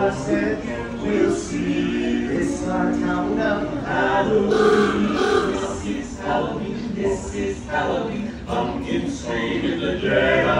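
Male barbershop quartet singing a cappella in close harmony, with several long held chords.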